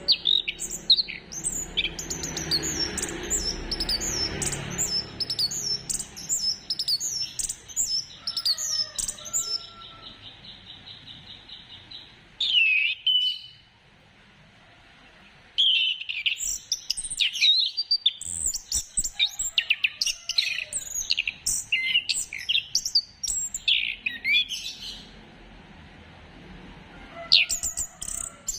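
Chestnut-capped thrush song: quick runs of high, falling whistled notes and a fast, even trill. Singing breaks off briefly about halfway through and again near the end before resuming.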